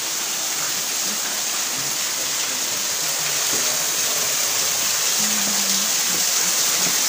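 Water falling and trickling down the rock wall of Hercules Cave, a steady rushing hiss that grows gradually louder.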